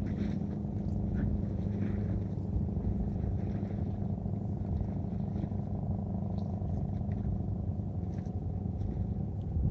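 Steady low hum of a boat engine running, with a few faint light clicks over it.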